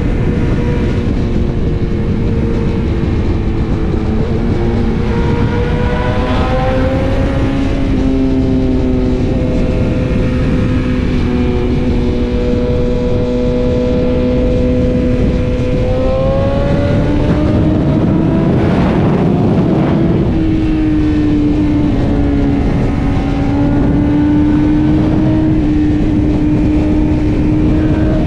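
BMW S1000RR sport bike's inline-four engine running at highway speed under a steady throttle, the bike accelerating. About two-thirds of the way through the engine note rises with a short rush of noise, then settles into a steady lower note.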